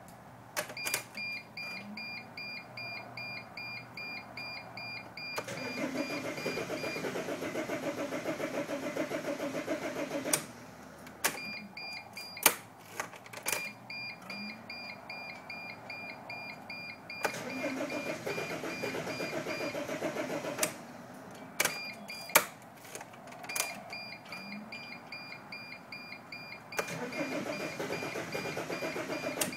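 2005 Dodge Sprinter's 2.7-litre five-cylinder diesel cranking on the starter three times, several seconds each, without catching: the engine turns over but won't start. Sharp clicks come between the attempts, and a dashboard warning chime beeps rapidly through much of it.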